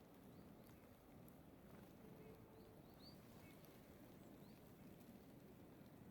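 Near silence: a faint low outdoor hum, with a few faint, short, high bird chirps scattered through it.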